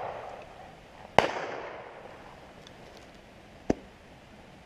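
Two shotgun shots fired at driven game birds. The first, about a second in, is loud, with a long echo dying away. The second, near the end, is fainter and shorter.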